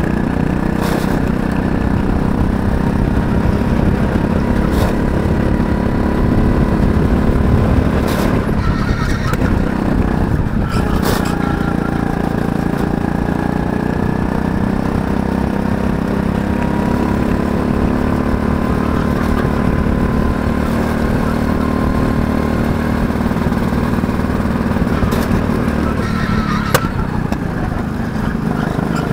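Go-kart's small engine running hard, heard from on board, its pitch sagging and climbing again twice: once about a third of the way in and once near the end, as the kart slows for corners and accelerates out.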